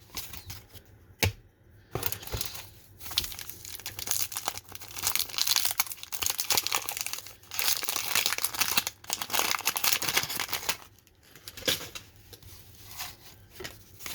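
The wrapper of a baseball card pack being torn open and crumpled: a sharp snap about a second in, then several seconds of dense crinkling that dies down near the end.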